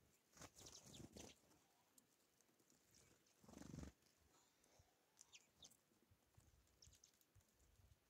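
Faint sounds of small birds at a wooden tray feeder in snow: two brief fluttering rustles, about a second in and again near the middle, the second the louder, then a few light high ticks of pecking at seed.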